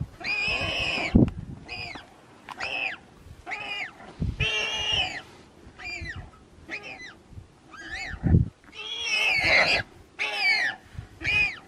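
Warthog giving distress squeals while a lioness holds it by the neck: about a dozen high, arching squeals in quick succession, a few of them drawn out to nearly a second. A few dull low thuds come between them.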